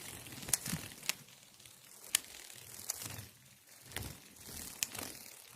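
Cartoon sound effect standing in for a butterfly: faint, sharp clicks at irregular spacing, about six of them, over a soft hiss.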